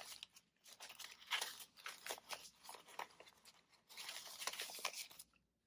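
Paper banknotes rustling and crinkling in soft, irregular flicks as a stack of dollar bills is pulled from a clear plastic binder pocket and counted through by hand.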